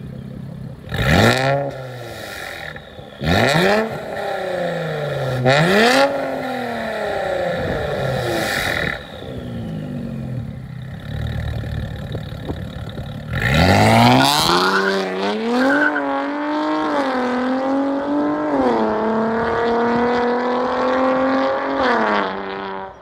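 Infiniti Q60 S twin-turbo 3.0-litre V6 through a Fi Exhaust valvetronic catback with catless downpipes, idling and revved hard three times in quick blips and once more softly. About thirteen seconds in the car pulls away under hard acceleration, its pitch climbing and stepping back at each upshift, then cuts off sharply near the end.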